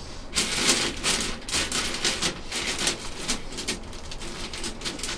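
Rapid, irregular clicking and clattering of small metal parts and hand tools during assembly of a steel tool cart.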